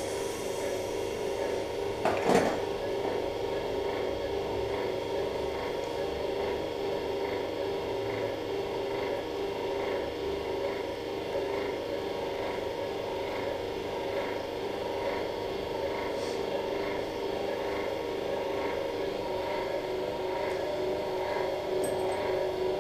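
Steady hum of operating-room equipment, several tones held level, with faint short pips repeating about one and a half times a second. A single knock about two seconds in.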